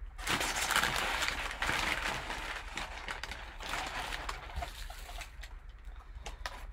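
Crumpled kraft packing paper and a slick nylon drawstring bag rustling and crinkling as the bag is pulled out of a cardboard box. It is loudest in the first couple of seconds, then goes on as softer, uneven handling rustles.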